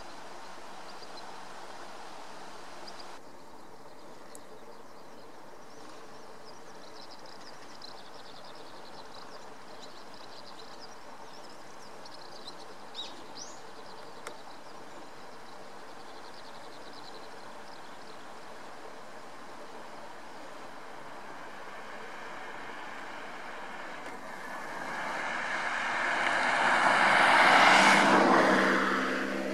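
A motor vehicle passes by: its noise swells up over the last few seconds, is loudest about a second and a half before the end, and then fades. Before it, only a steady background hiss with a few faint high chirps.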